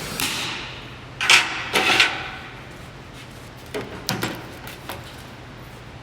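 A handful of short knocks and scrapes, like tools or parts being handled; the loudest come about a second and two seconds in, with fainter ones around four seconds in.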